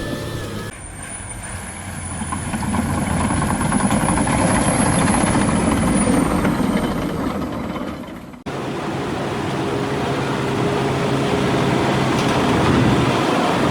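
Heavy earth-moving machine's diesel engine running hard, with a thin high whine over it for several seconds; the sound changes abruptly about eight seconds in to another steady engine drone.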